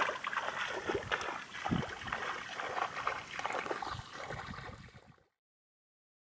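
Bare feet splashing and squelching through mud and shallow water in irregular steps, over a wash of trickling water. The sound fades and cuts to silence about five seconds in.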